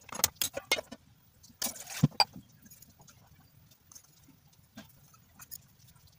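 Gas stove's burner igniter clicking four or five times, then a short whoosh as the gas catches, followed by two sharp metal knocks of a steel pot set on the burner grate; after that only faint small ticks.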